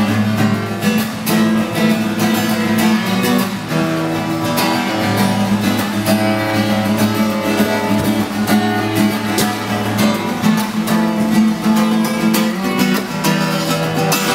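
Solo acoustic guitar strummed in steady chords, changing chord every few seconds.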